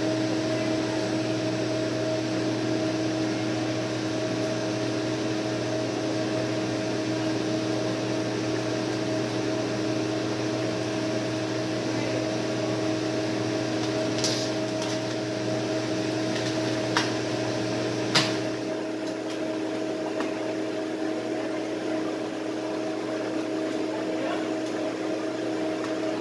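Microwave oven running with a steady hum, then shutting off about eighteen seconds in, just after two sharp clicks. A fainter steady hum carries on after it stops.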